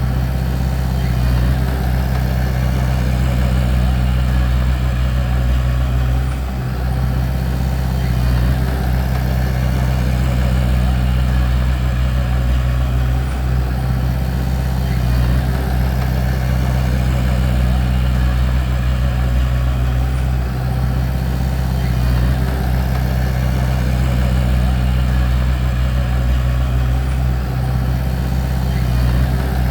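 Bulldozer's diesel engine running steadily under load, with a low, even drone and a brief dip about six seconds in.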